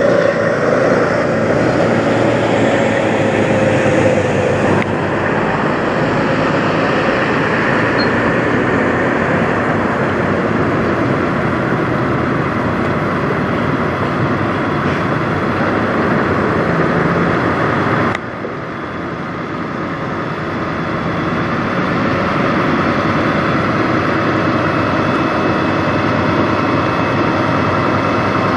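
Diesel engine of a Peterbilt semi truck running steadily at low speed, its note falling slightly in the first few seconds. About two-thirds of the way through the sound cuts off abruptly to a quieter level, then builds back to a steady run.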